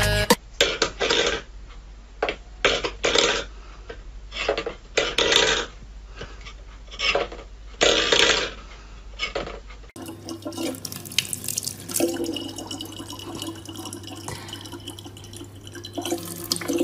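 Water splashing in irregular bursts for about ten seconds. Then, after a sudden change, a steady low hum with faint running water.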